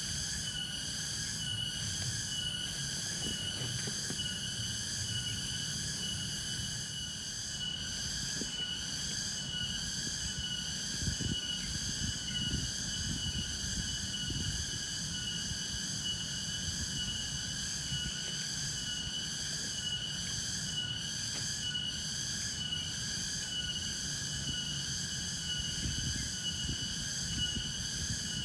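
A night chorus of insects, a steady shrill high-pitched trilling that pulses evenly throughout, over a low rumble.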